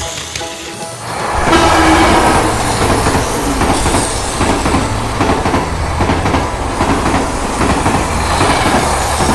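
Battery-powered Plarail toy train running on plastic track, its small motor and wheels making a dense clattering rattle that grows loud about one and a half seconds in.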